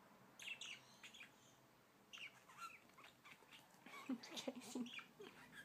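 Budgerigars giving soft, short chirps now and then, with a quick cluster of them about four seconds in.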